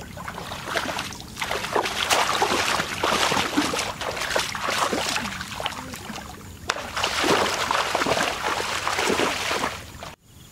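Legs wading through shallow muddy water, sloshing and splashing in repeated surges, with a short lull about six seconds in. The sound cuts off suddenly near the end.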